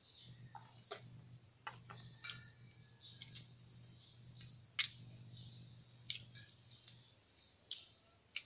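Irregular small clicks and plastic-bag crinkles from hands picking through and peeling small ingredients, over a low steady hum that stops about seven seconds in.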